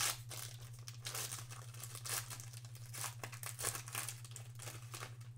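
Gold foil wrapper of a Panini Gold Standard football card pack crinkling and crackling as it is torn open by hand.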